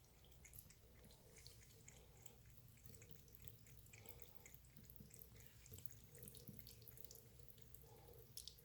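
Faint trickle of a thin stream of water running from a sink tap, with small scattered ticks over it.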